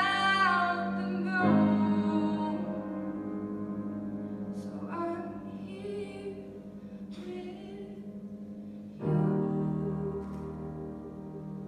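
Slow song for female voice and grand piano: a sung note trails off about a second in, then a piano chord is struck and left to ring and fade, and another chord is struck about nine seconds in.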